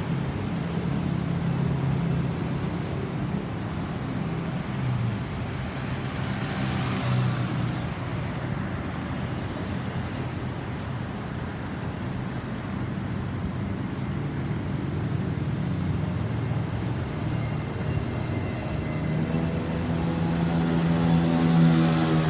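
Road traffic running steadily, with a vehicle rushing past about seven seconds in. Near the end an engine grows louder as another vehicle approaches.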